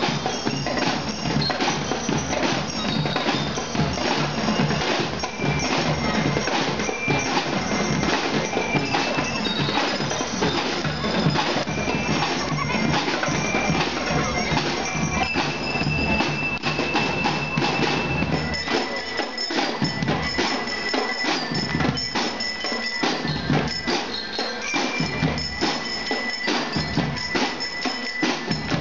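Drum and lyre band playing: snare and bass drums beating a fast, dense rhythm under the bright ringing melody notes of bell lyres. The deep drum beats thin out about two-thirds of the way through while the snares and lyres play on.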